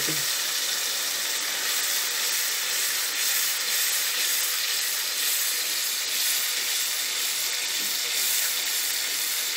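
Onion-tomato masala sizzling steadily in a non-stick karahi as it is stirred with a spatula.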